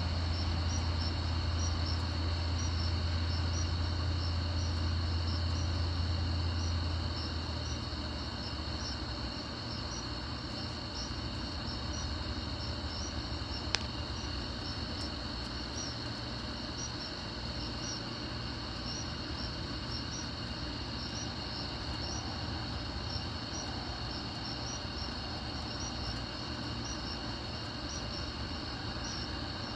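Night insects trilling steadily, with short chirps repeating at an even pace over the trill. A low hum sounds under them and fades out about seven seconds in, and a single sharp click comes about halfway through.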